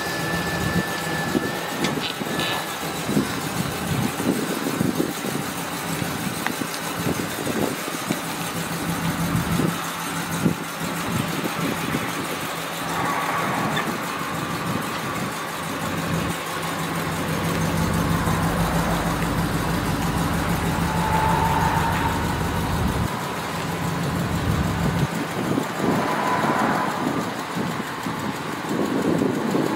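Pickup truck's Vortec gasoline V8 idling steadily, with a deeper rumble swelling for several seconds midway.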